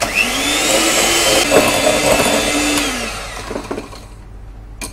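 Electric hand mixer beating egg yolks and sugar in a bowl until creamy: the motor spins up, runs steadily, then winds down about three seconds in. A sharp click near the end.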